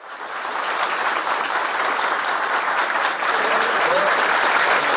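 A crowd applauding, rising over the first second and then continuing steadily.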